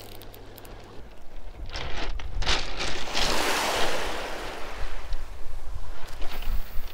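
Small waves washing onto a shingle beach: a hiss that swells about three seconds in and fades, over a low rumble of wind on the microphone. A few short clicks come just before the swell.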